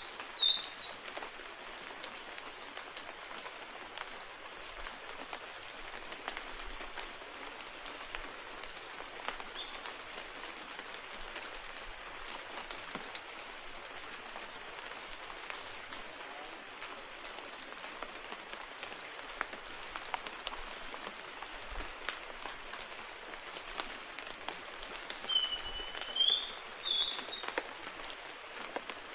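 Steady rain pattering on forest leaves, with scattered drips. A bird gives short rising whistles at the start and again near the end.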